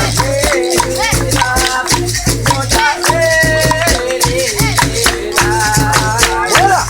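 Capoeira roda music: a berimbau with its caxixi shaker rattling, a singing voice leading a melody, and steady rhythmic hand clapping.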